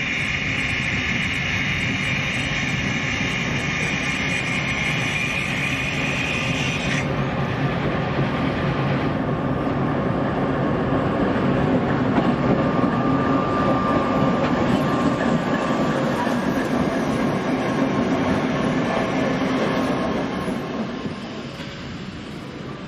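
Twin-section diesel locomotives running along a station track: a heavy diesel rumble with wheel and rail noise. It grows louder toward the middle and drops away in the last few seconds.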